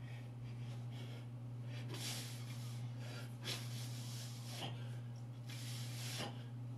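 A man breathing hard during dumbbell lifts: a run of short, noisy exhalations starting about two seconds in, roughly one a second, over a steady low hum.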